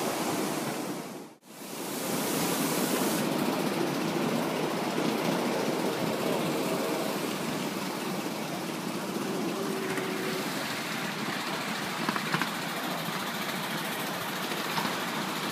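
Steady running noise of a ride-on miniature railway train travelling along its track, heard from aboard the carriages. The sound drops out briefly about a second and a half in, then resumes.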